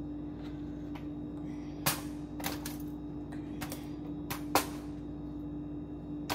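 Scattered sharp clicks and knocks of kitchen handling, about six in a few seconds, the loudest a little past the middle, over a steady low hum.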